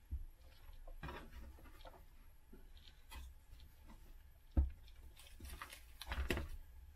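Faint clicks and knocks of plastic as the keyboard assembly of an IBM ThinkPad 755c is lifted open and handled. A sharper knock comes about four and a half seconds in, and a quick run of clicks follows near six seconds.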